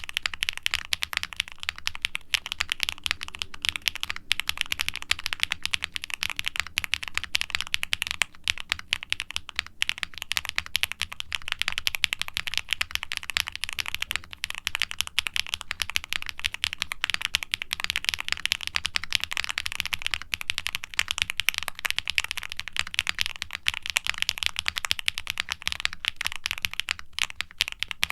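Steady fast typing on a QwertyKeys QK65 mechanical keyboard with factory-lubed HMX Poro linear switches, a polycarbonate plate and GMK double-shot ABS keycaps: a dense, unbroken run of keystrokes with a muted clack, toned down by the board's foam and silicone dampening.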